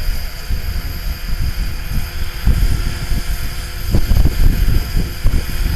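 Wind buffeting the microphone in gusts, louder from about halfway through, over the steady high whine of a Hurricane 425 electric RC helicopter's motor and rotor in flight.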